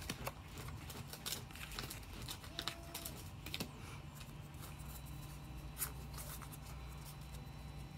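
Pokémon trading cards being handled and shuffled in the hands: scattered soft rustles and light clicks of card stock.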